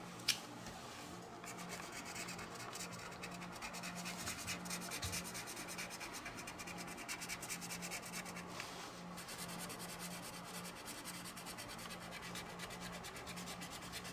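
Felt-tip marker scratching back and forth on coloring-book paper in rapid shading strokes, with one small click just after the start.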